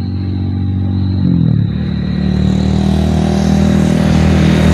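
An engine running steadily close by, its pitch dropping about a second in and then holding, slowly getting louder.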